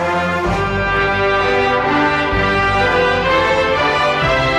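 Orchestral music led by brass, holding long chords, with the bass note changing about every two seconds.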